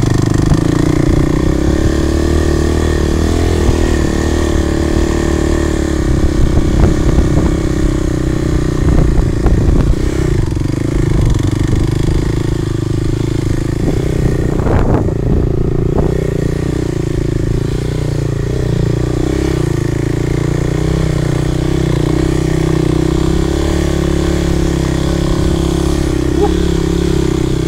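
Dirt bike engine running at fairly steady revs while ridden off road, with a run of short knocks and rattles about a third of the way in.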